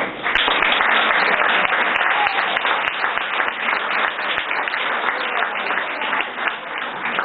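Audience applauding: dense clapping that starts right at the opening and slowly tapers off toward the end.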